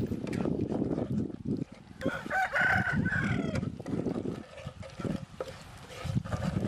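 A rooster crows once, about two seconds in, for roughly a second and a half. Under it a spatula scrapes and clatters in a frying pan as food is stirred.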